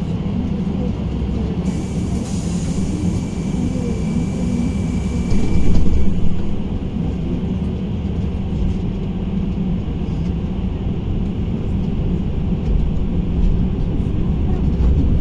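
Cabin noise aboard a moving KamAZ-6282 battery-electric bus: a steady low rumble of tyres and road. A thin high tone with a hiss sounds for about four seconds near the start, ending in a brief louder moment about six seconds in.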